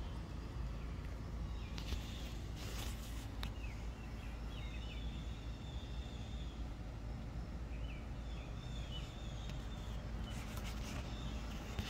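Outdoor ambience: birds chirping in short phrases, about two seconds in and again near the end, over a steady low rumble.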